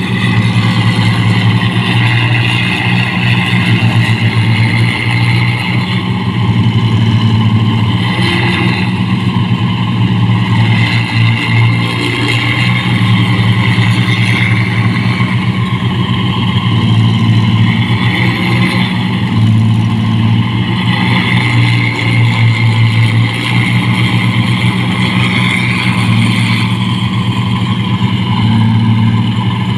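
Old combine harvester's diesel engine running hard, its note dipping and picking up again a few times under changing load, with a steady mechanical whine from the machine above it.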